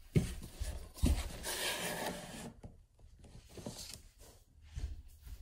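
Phone handling noise: two knocks and a rustle of clothing against the microphone as the phone is moved and set down on a wood floor, then small knocks.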